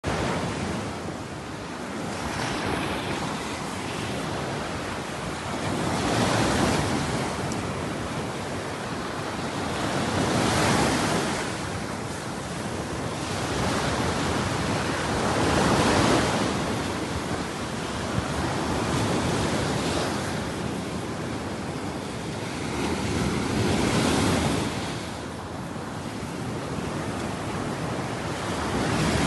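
Waves washing ashore, a steady rush of water that swells and falls back every few seconds, with some wind on the microphone.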